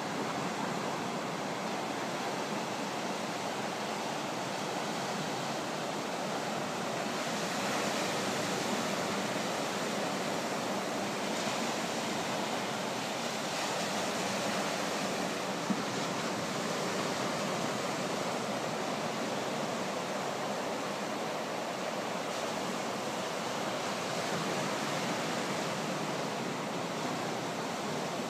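Ocean surf breaking on a sandy beach: a steady rushing wash of waves that swells a little now and then.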